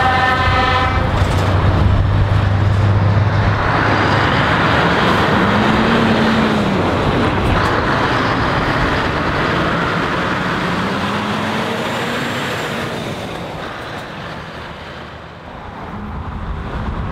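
Heavy trucks driving off: a short horn blast in the first second, then diesel engines pulling away, their pitch rising and falling as they accelerate and change gear. The sound fades, and near the end another vehicle approaches.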